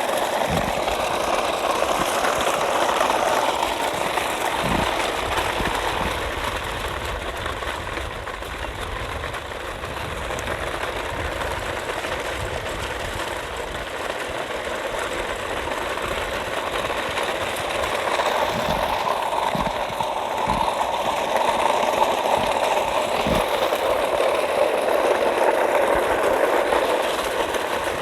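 A motor or engine running steadily, with a few short low knocks.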